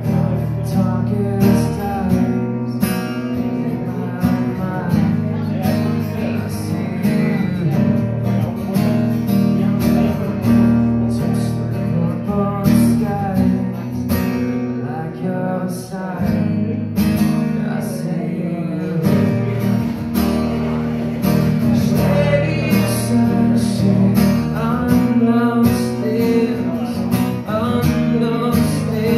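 A man singing into a microphone while strumming an acoustic-electric guitar, steady chords throughout.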